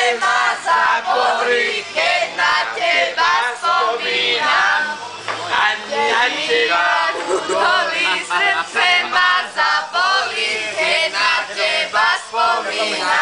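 A group of men and women singing together loudly, with voices overlapping continuously.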